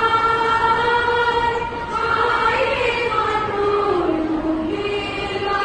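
A choir singing a slow melody in long held notes, the voices moving together to a new pitch every second or two.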